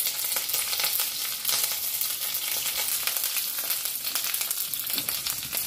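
Sliced onions, curry leaves and mustard seeds sizzling in hot oil in a kadhai during a tempering, with a steady dense crackle.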